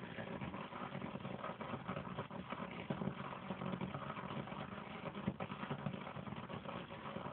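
Wind rushing and buffeting over the microphone: a steady rough noise with frequent small crackles.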